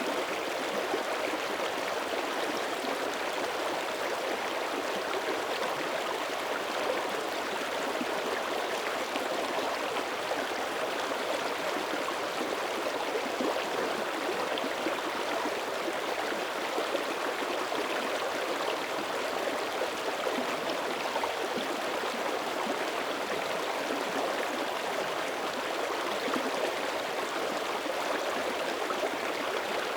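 Shallow mountain creek running steadily, its current still flowing under thin early-winter surface ice, a continuous rushing and gurgling of water.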